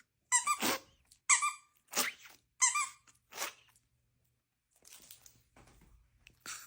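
A small dog sneezing five times in quick succession, each sneeze a short, squeaky burst. One more short burst comes near the end.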